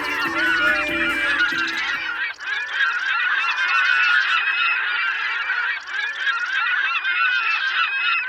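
A large flock of geese honking, many calls overlapping in a continuous din. Under it a low steady hum stops about two seconds in.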